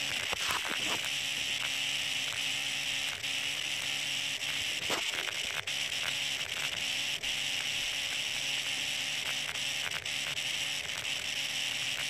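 A steady hiss with scattered faint clicks.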